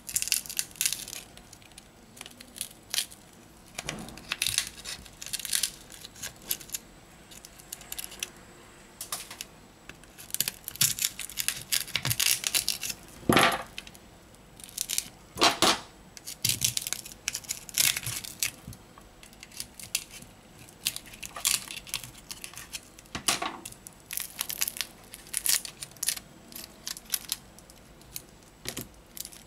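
Cracked display of a Samsung Galaxy A10 being pried off its frame with a metal pick: irregular crackling, scraping and sharp clicks as the glued display tears away, with the two loudest cracks about halfway through.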